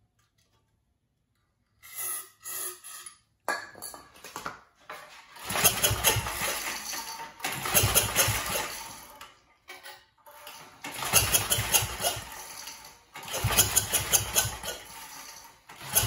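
Recoil starter of a 10 HP Briggs & Stratton L-head engine on a generator pulled repeatedly, each pull a burst of about two seconds of the engine turning over, without it starting.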